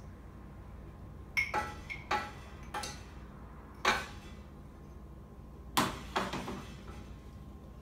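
Cookware being handled: about eight separate knocks and clinks, irregularly spaced, some with a short ring.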